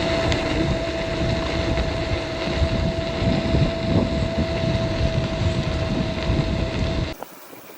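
Caroma P1 electric scooter riding at a steady speed: its 350 W motor whines at one steady pitch under loud wind noise on the microphone. A little past seven seconds the sound drops abruptly to a much quieter background.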